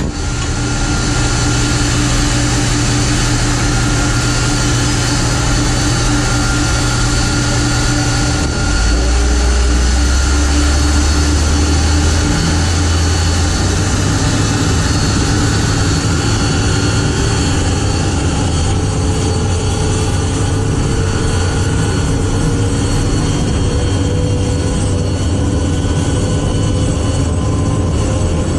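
Boeing 747-200F freighter's four jet engines running at close range. About a third of the way in a deep rumble swells, and in the second half a tone climbs slowly as the engines are brought up to taxi the aircraft away.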